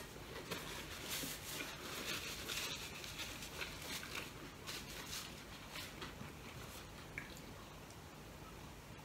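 A person eating close to the microphone: chewing and mouth noises, with a quick run of short clicks over the first five seconds that thins out toward the end.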